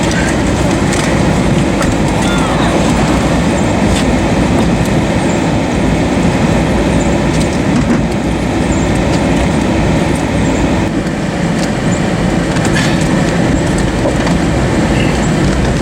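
Deep, steady roar of a large tornado close by, heard as continuous rumbling noise.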